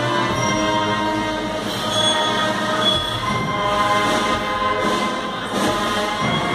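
A processional band playing a slow funeral march, with long held chords.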